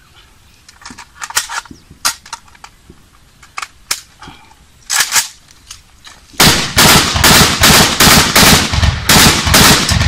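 AK-47 rifle firing: a few scattered sharp cracks, then from about six seconds in a fast string of about a dozen loud shots at roughly three a second.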